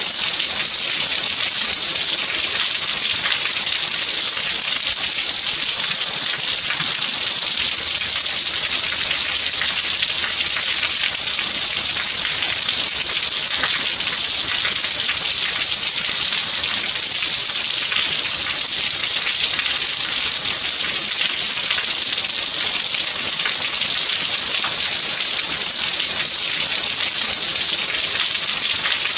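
Steady rain falling: an even, unbroken hiss, strongest in the high range, with faint patter of individual drops.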